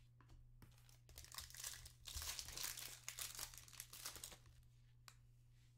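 Foil trading-card pack wrapper crinkling and tearing as it is opened by hand, a crackling rustle from about a second in that dies away about a second before the end.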